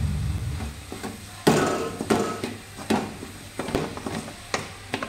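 A spatula stirring and scraping a dry vegetable stir-fry in a metal kadai, knocking against the pan about six times, the loudest stroke about one and a half seconds in.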